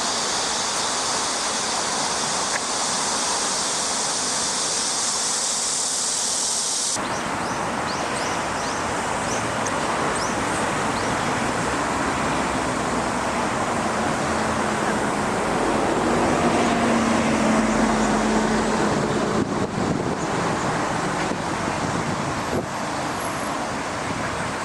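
Rushing floodwater hisses steadily for several seconds, then the sound changes abruptly to road traffic noise. A vehicle passes about two-thirds of the way through, its engine hum swelling and dropping slightly in pitch.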